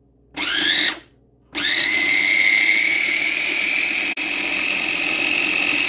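Small electric food chopper grinding rolled oats into oat flour: a short pulse with the motor spinning up, then a longer run of about four seconds with the pitch creeping slowly upward, stopping abruptly near the end.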